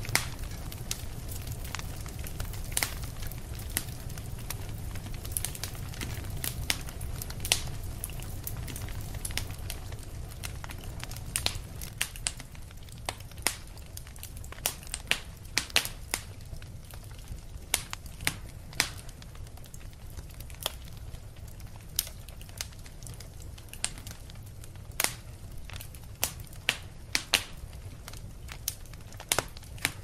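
Wood fire crackling in a fireplace: sharp, irregular pops and snaps, coming more often after the first third, over a steady low rumble.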